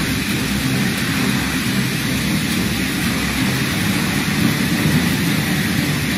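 Floodwater rushing across a street as a steady, unbroken noise.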